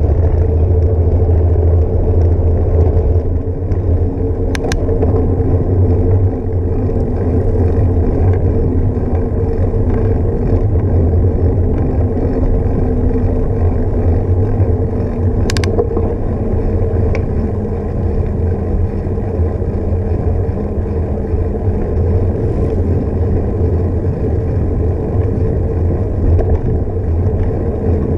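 Bicycle ride recorded on a bike-mounted action camera: a steady rush of wind on the microphone and rolling rumble from the bike on a paved path. A couple of sharp clicks come about 5 and 16 seconds in.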